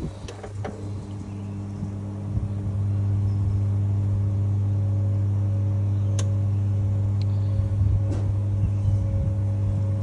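GE Profile top-load washing machine running with a steady, even-pitched low hum that swells over the first few seconds and then holds, with a few light clicks.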